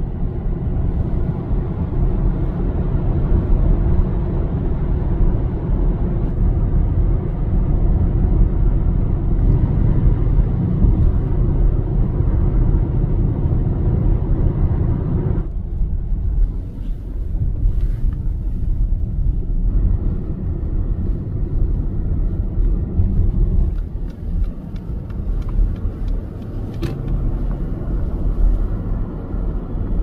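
Car driving, a steady low rumble of engine and road noise. About halfway through, the sound changes abruptly and becomes duller, with a few light clicks later on.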